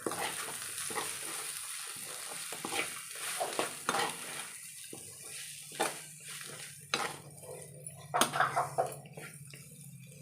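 Ivy gourd fry being stirred in a pan after the spice powders go in: a utensil scraping and clinking against the pan in irregular strokes, louder in the second half.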